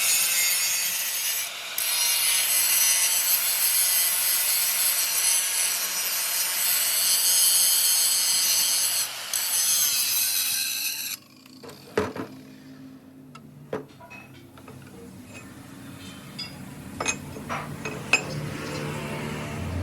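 A power tool working on metal runs steadily with a high whine, then stops suddenly about eleven seconds in. Afterwards there are a few sharp knocks and clicks.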